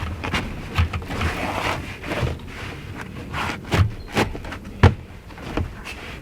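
Carpet being handled and fitted into place: scuffing and rustling with irregular knocks and thumps, the sharpest about five seconds in.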